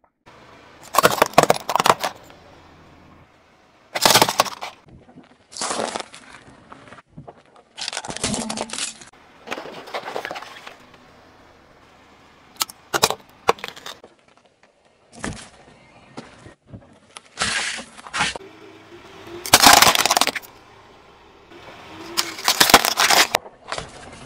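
A car tyre rolling onto small objects and crushing them one after another: toothpaste tubes bursting, a bottle, a jelly pouch. This gives about a dozen short bursts of cracking, crunching and popping, each starting and stopping abruptly.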